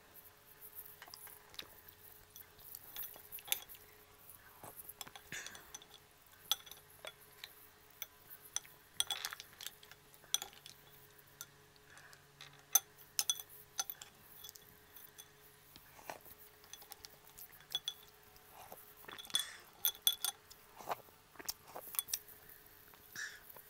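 Mussel shells clicking and clinking against one another, the ceramic bowl and a metal spoon as steamed mussels are picked out and pried open by hand: many small, irregular sharp clicks.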